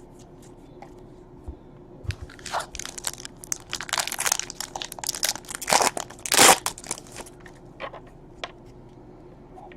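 A trading card pack wrapper being torn open and crinkled by hand: a few light clicks, then a few seconds of dense crackling, loudest near the middle, fading to a few ticks.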